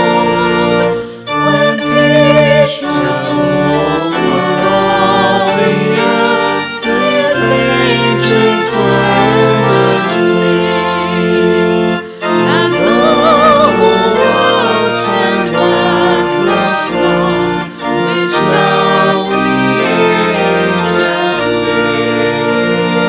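Music: sustained chords under a melody line that wavers in pitch, with brief dips in loudness between phrases.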